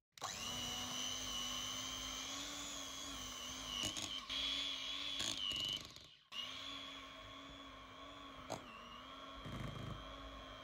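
Electric hand mixer running steadily, its beaters churning thick whipped cream, with a high motor whine. The sound cuts out briefly about six seconds in, then the mixer runs on.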